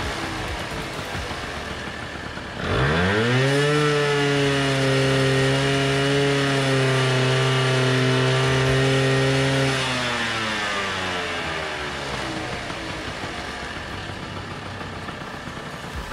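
1984 Honda Aero NH125 scooter's 125cc two-stroke engine running: it settles toward idle, is revved up sharply about two and a half seconds in, held at high revs for about seven seconds, then slowly drops back toward idle.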